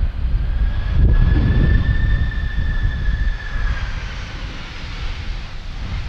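Boeing 767-300 jet engines whining on final approach, the high whine dropping in pitch as the jet passes about two-thirds of the way in. Strong gusty wind rumbles on the microphone underneath.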